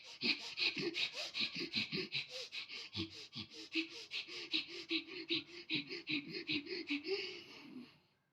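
Bhastrika pranayama (bellows breath): rapid, forceful breaths in and out through the nose, about five a second, keeping an even rhythm, then stopping about eight seconds in.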